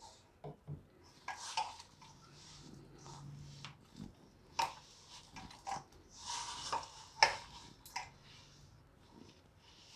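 A hand mixing and kneading damp tomato-and-flour dough in a stainless steel bowl: irregular squishing and rubbing, with sharp clicks and knocks against the metal bowl, the loudest about seven seconds in. A little water is being worked in to bind a stiff puri dough.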